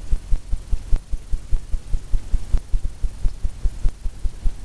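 A low, steady throbbing hum that pulses about four or five times a second.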